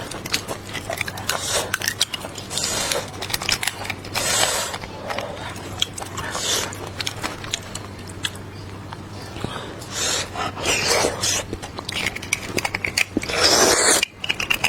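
Close-miked eating: irregular chewing and biting with wet smacks and clicks, and a louder burst near the end.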